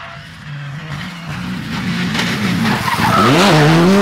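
Suzuki Swift R+ four-wheel-drive rally car approaching at speed, its engine revving hard and growing steadily louder. The engine note drops briefly and climbs again a little after three seconds in.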